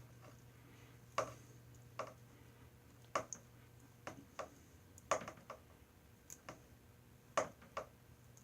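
Faint, irregular small clicks and ticks of hands handling the twisted-pair wires of a stripped Cat5 cable, bending the unused pairs aside.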